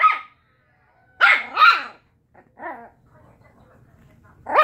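Small puppy barking in short, sharp yaps: two quick barks about a second in, a softer one shortly after, and one more bark near the end.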